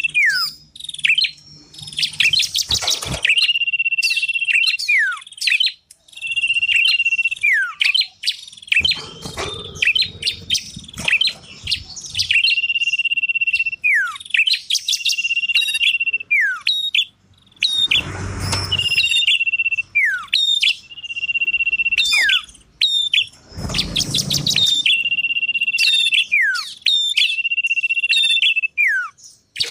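Small songbirds singing a repeating lure song: a steady high whistle held about a second, then quick downward-sliding notes and chatter, over and over. Twice, around the middle and later on, a second-long rustling thump cuts across the song.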